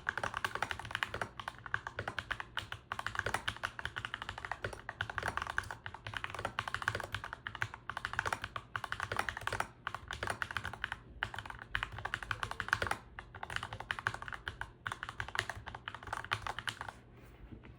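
Typing on an Ajazz NK68 mechanical keyboard fitted with lubed KBDiy Holy Panda tactile switches: a fast, continuous run of keystrokes with a few brief pauses, trailing off near the end.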